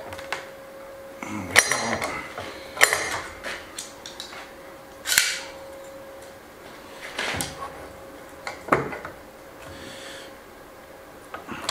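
Steel bar clamps clinking and clanking metal on metal as they are slid into place and tightened on a glued timber beam, about half a dozen separate knocks and clicks, some with a short metallic ring.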